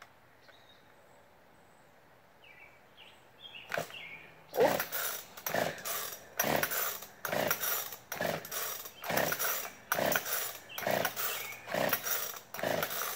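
Gas chainsaw's recoil starter cord being pulled again and again, about once a second, each pull spinning the engine over without it firing: the saw won't start. The pulls begin about four seconds in.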